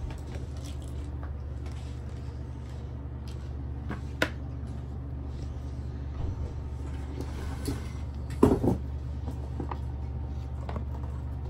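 Hello Kitty toy kitchen pieces being handled: scattered light clicks and knocks, with a louder clatter about eight and a half seconds in, over a steady low hum.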